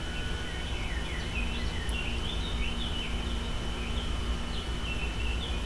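A bird chirping over and over, short high notes several times a second, over a steady low rumble and a faint steady high whine.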